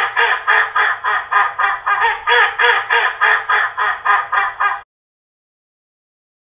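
A loud, evenly spaced run of short pitched pulses, about three a second, with digital silence on either side: a dubbed-in sound effect. It cuts off suddenly about five seconds in.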